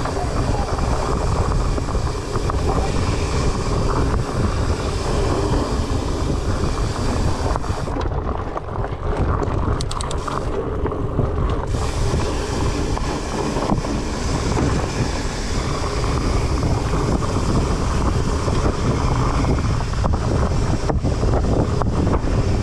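Wind rushing over the microphone with the rumble of a Trek Farley 9.8 fat bike's tyres over a dirt trail, continuous and loud, with scattered short knocks and rattles from the bike over bumps.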